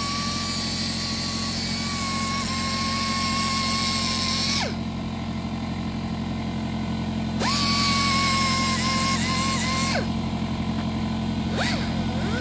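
Small pneumatic rotary grinder (air sander) whining at high speed with a hiss of exhaust air as it sands down hardened body filler on an alloy wheel's spokes. It winds down to a stop about four and a half seconds in, starts again a few seconds later, stops again, then gives a short burst and starts once more near the end. A steady low hum runs underneath.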